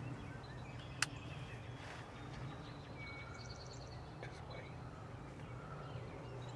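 Small birds chirping and trilling in the woods over a steady low background hum, with a single sharp click about a second in.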